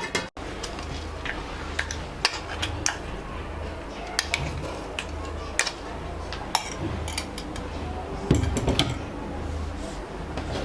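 A spoon clinking and tapping against a mixer jar and plate as freshly ground masala is scooped out, in scattered sharp clicks over a low steady hum.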